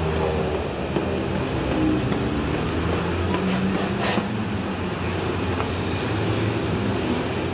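Steady low mechanical hum over a busy background din, with a few sharp clicks a little past three and a half and four seconds in.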